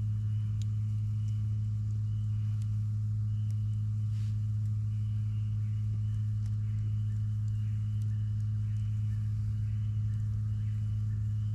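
A steady low mechanical hum. Above it, a faint high chirping repeats roughly once a second, and there are a few faint clicks.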